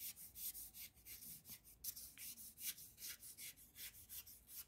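Watercolour paintbrush scrubbing back and forth on paper: a faint, rhythmic swishing of about four strokes a second.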